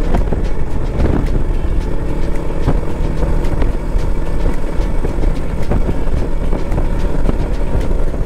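Royal Enfield motorcycle running at highway speed, its engine rumble mixed with heavy wind rush buffeting the microphone.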